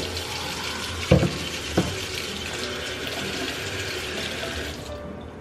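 Kitchen faucet running into a stainless steel sink while hands are washed with pump soap, with two short knocks about one and two seconds in. The water is turned off near the end.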